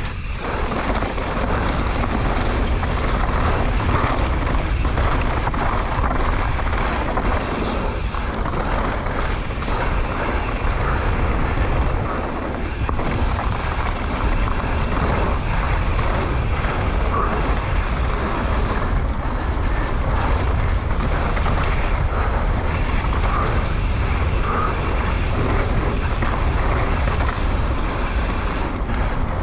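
Steady wind rumble on the rider's camera microphone, mixed with the noise of a mountain bike descending a dirt trail at speed.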